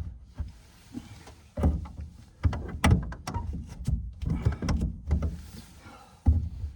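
A run of sharp clicks and knocks with heavier thumps, as fittings and gear are handled inside a truck-bed camper shell.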